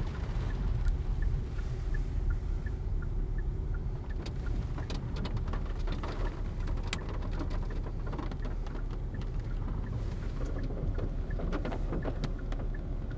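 Car driving, heard from inside the cabin: a steady low road-and-engine rumble. A light, regular ticking runs for the first few seconds, and scattered sharp taps and clicks come later.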